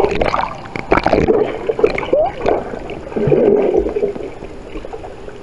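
Churning water and rising air bubbles heard underwater through a submerged camera, muffled and gurgling, louder in the first second and again about three seconds in.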